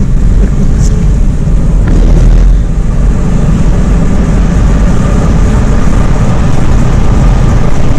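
Car driving along at road speed, heard from inside the cabin: a steady, loud drone of engine and road noise.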